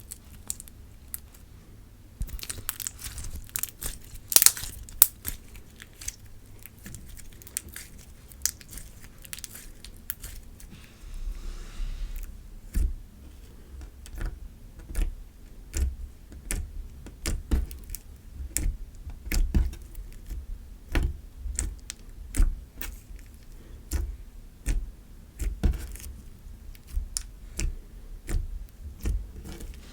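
Glossy slime being pressed and stretched by hand, with sharp wet clicks and pops. From about eleven seconds in, the pressing settles into a steady rhythm of soft squelches, a little more than one a second.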